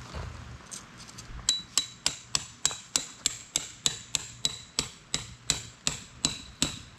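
A hammer driving a metal tent peg into the ground: steady blows, about three a second, starting about a second and a half in, each with a short metallic ring.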